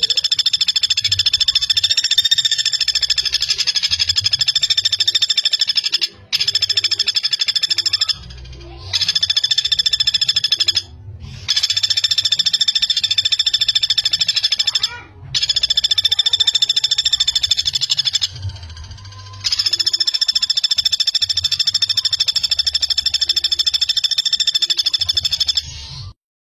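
Common flameback woodpecker giving its fast, dense rattling call, repeated in about six long bouts of two to seven seconds with short breaks between them.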